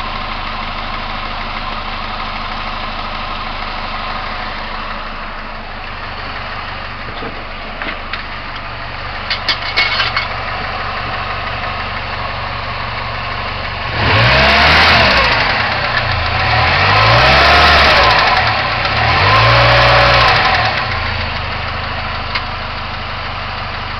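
Pontiac Grand Am's 2.4-litre Twin Cam four-cylinder engine idling warm, with a noise that the owner cannot place and suspects is the timing chain or a rod. Past the middle it is revved up and back down three times in quick succession, then settles back to idle.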